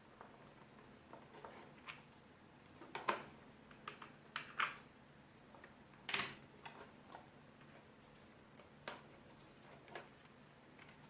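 Irregular light plastic clicks and handling knocks from a wireless keyboard and an AA battery being handled around the battery compartment, with the loudest clicks about three, four and a half and six seconds in.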